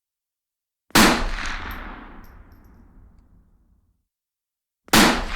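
Two single rifle shots about four seconds apart. Each is a sharp crack followed by a long echoing tail that fades over about three seconds.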